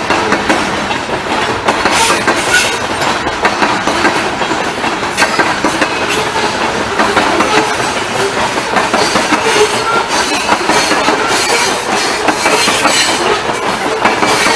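Freight train's covered hopper cars rolling past close by, a steady rumble with the wheels clicking over rail joints again and again.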